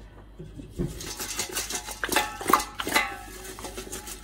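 Background music over the clatter of a stainless steel cooking pot being handled: several sharp knocks of metal and handles starting about a second in as the pot is lifted and its onions and spices are stirred and tossed.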